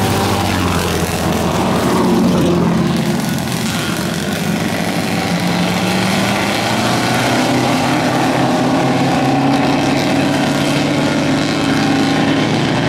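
Engines of several vintage sports racing cars running as the cars pull away from the start and accelerate onto the course, the engine pitch shifting up and down as they go.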